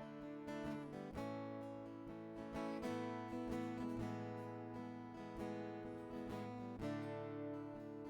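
Acoustic guitar strumming chords, the instrumental introduction to a worship song, with the chord changing about a second in, near three seconds and near seven seconds.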